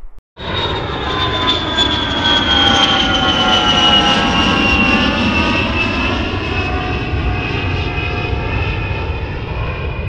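An engine roar with a whine that slowly falls in pitch, starting a moment in after a brief gap and holding at a steady level.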